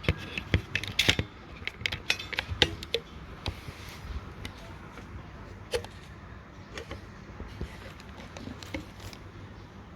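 Irregular clicks and knocks of small hard objects being handled and set down, dense in the first few seconds and sparser later.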